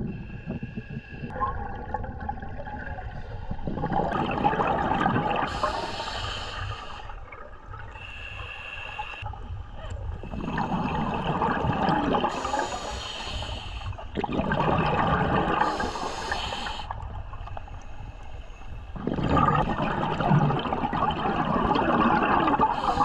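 Scuba diver's regulator breathing heard through an underwater camera: a hiss on each inhale and a rush of exhaled bubbles about every four to five seconds, over a low steady underwater hiss.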